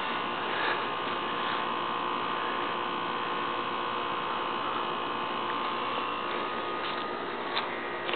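A steady hum with a high, even whine held through it, and a couple of faint clicks near the end.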